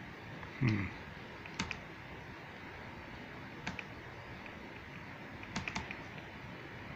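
A handful of sharp single clicks from a laptop's keys or trackpad, a second or two apart, with two close together near the end, over a faint steady hiss. A brief low voice sound comes just under a second in.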